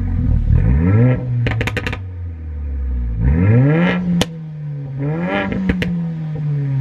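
Mercedes A45 AMG's 2.0-litre turbocharged four-cylinder with the AMG performance exhaust, warmed up and in Sport Plus, revved from idle in three quick blips. Each blip is followed by sharp pops and crackles from the exhaust as the revs drop, the loudest burst a rapid string of cracks about a second and a half in.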